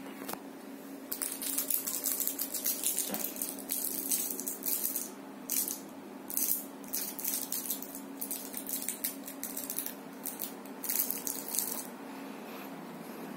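Candy wrapper crinkling and rustling in irregular bursts, shaken as a toy to draw a cat into play, over a low steady hum.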